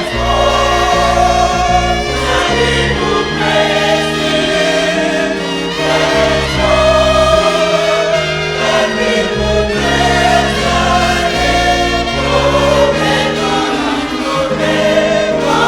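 Gospel choir singing over music with a sustained bass line, the outro music at the close of a broadcast.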